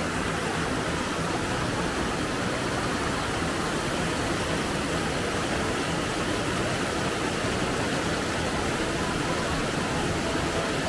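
Steady rushing of running water, like a small waterfall or stream, holding an even level throughout.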